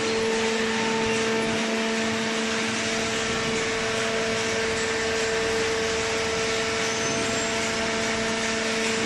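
Hydraulic cardboard baler running: a steady machine hum with a constant pitched whine.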